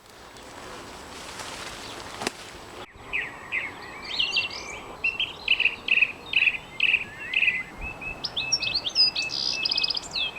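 Outdoor background noise with a single click, then after a sudden cut about three seconds in, a songbird singing a busy run of high chirps and trills that grows fuller toward the end.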